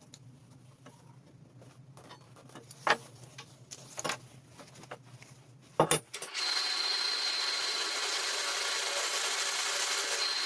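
Scattered clicks and knocks of metal parts being handled and set, then about six seconds in an angle grinder is heard already running, cutting through a pipe in the jig: a steady high whine over a loud, dense hiss.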